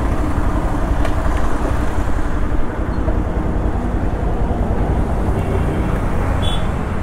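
Bajaj Pulsar 220F single-cylinder motorcycle being ridden, its engine running under a steady rush of wind on the microphone. A short high chirp sounds near the end.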